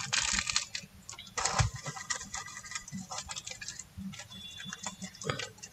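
Small metal blade scraping and picking at hard glue around a chip on a phone motherboard: quick, irregular scratches and clicks, with two denser bursts of scraping in the first two seconds.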